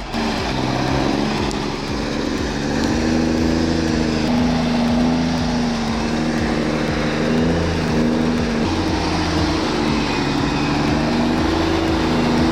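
An engine running steadily under load, its pitch drifting slightly up and down.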